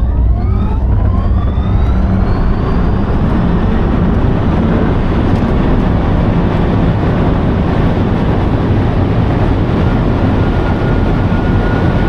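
Rimac Nevera R's electric motors whining under full power as the car accelerates toward 400 km/h. The whine rises steeply in pitch over the first few seconds and then levels off under a loud, steady roar of wind and tyres heard from inside the cabin.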